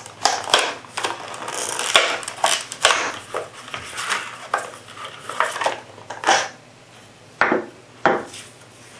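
Packaging of a wooden revolver grip being opened and the parts handled: rustling and crinkling with a run of sharp clicks and knocks, thinning out after about seven seconds.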